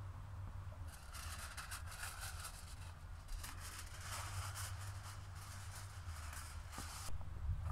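A sheet of aluminium foil crinkling and crackling as it is handled and spread over a baking tray, starting about a second in and stopping abruptly near the end, over a steady low rumble.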